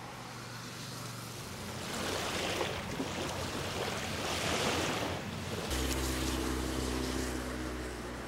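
Wind noise on the microphone, with lake water, swells twice. About two-thirds of the way through, a steady low engine drone takes over, fitting the amphibious bus motoring across the lake.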